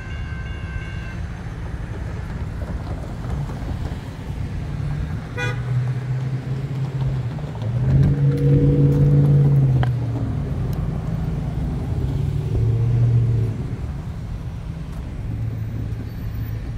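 Railroad crossing bell ringing and cutting off about a second in as the gates lift, leaving steady street traffic and wind. The loudest sound is a low, steady horn-like tone from about eight to ten seconds in, with two shorter, fainter ones later.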